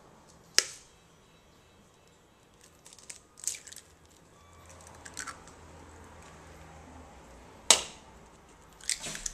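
Two raw eggs being cracked open: a sharp crack of a shell struck about half a second in and another near the end, with softer crackles of shell being pulled apart in between.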